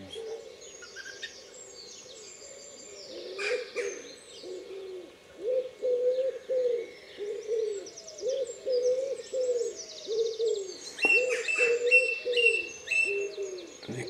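Dawn chorus of birds: a steady run of low, arched coos about two a second starts about three seconds in, under higher songbird phrases of whistles and fast trills.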